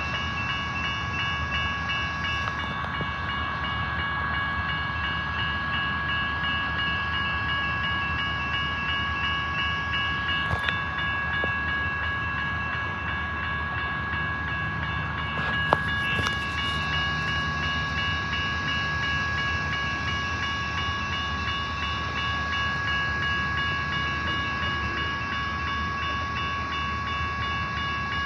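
Union Pacific locomotive 1390 and its train: a steady low rumble under a constant high-pitched whine, with a sharp knock about ten seconds in and a louder one about sixteen seconds in.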